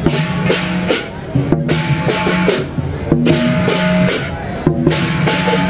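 Lion dance percussion band playing: a large drum beating with crashing cymbals, in repeated phrases broken by short pauses about every second and a half.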